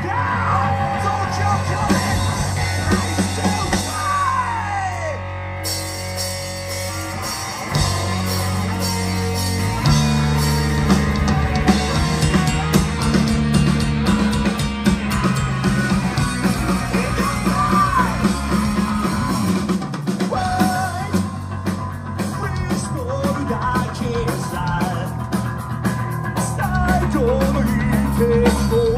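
Punk rock band playing live, with drums, bass, guitar and singing.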